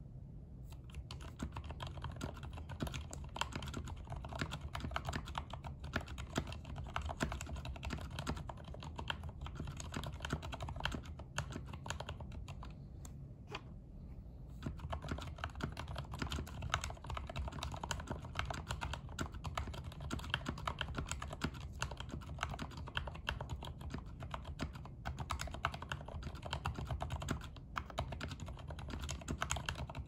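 Typing on a JetVan custom mechanical keyboard fitted with Gateron Black Ink linear switches: a steady, fast run of keystroke clacks, with a short lull about halfway through.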